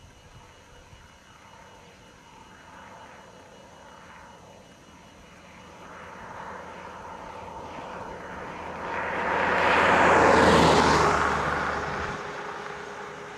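A vehicle passing by: a rushing sound that builds slowly to its loudest about ten seconds in, then fades away.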